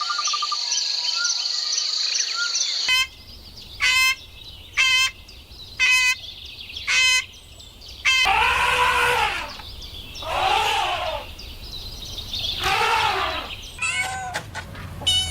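A run of animal calls: a steady high trill, then five short sharp chirps about a second apart, then three drawn-out calls that rise and fall, and a quick run of chirps near the end.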